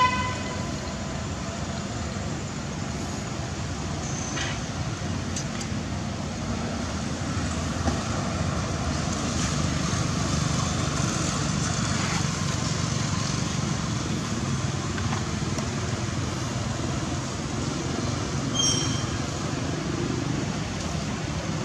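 Steady hum of road traffic. A brief high-pitched chirp comes near the end.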